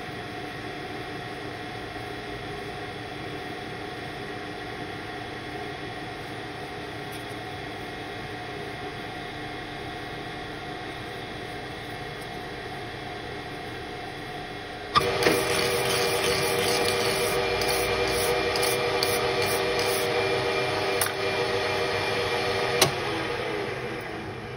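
AL-1324 centre lathe running under power while single-point cutting a 1 mm pitch thread, a steady mechanical hum with whining gear tones, played back at double speed. About two-thirds of the way through it steps up louder and busier, with a couple of sharp clicks, then fades near the end as the spindle slows.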